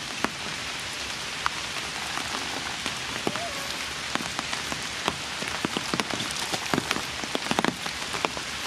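Steady rain falling, with many individual drops striking close by as sharp ticks over an even hiss.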